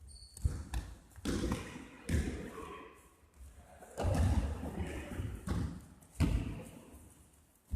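A basketball bouncing on a sports-hall floor: about eight irregular thuds, echoing in the hall.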